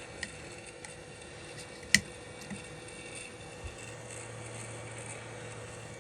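Light clicks and taps of handling on a phone-repair bench, with one sharp click about two seconds in. A low steady hum sets in a little before four seconds.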